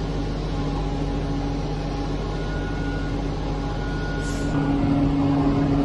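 Concrete pump truck's diesel engine running steadily, an even low drone, with one light click about four seconds in.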